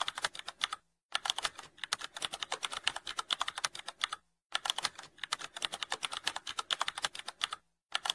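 Computer keyboard typing sound effect: rapid key clicks in three runs, with short pauses about a second in, just after four seconds, and near the end.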